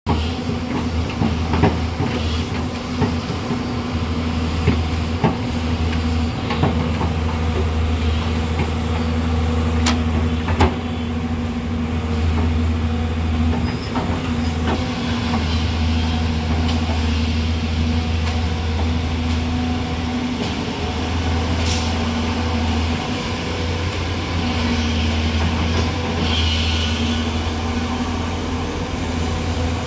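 Hydraulic excavator's diesel engine running steadily at work, with sharp clanks and knocks now and then in the first ten seconds or so.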